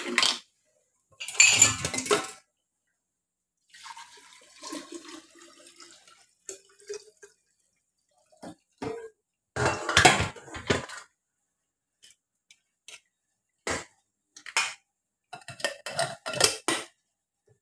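Stainless steel pots and kitchenware handled and set down, clattering in separate short bursts, with a quick run of sharp knocks near the end.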